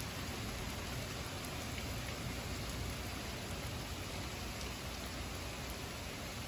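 Heavy rain falling steadily on pavement and lawns during a thunderstorm, an even, unbroken hiss.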